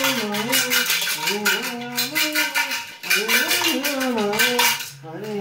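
A wordless, wavering chanted hum carried on almost without a break, over rapid metallic clinks and scrapes from a metal bowl being handled.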